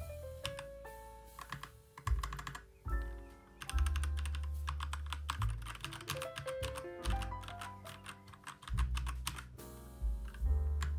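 Keys on a white 60% mechanical keyboard with red switches being pressed in quick runs of clicks, over background music with a sustained bass line and melody.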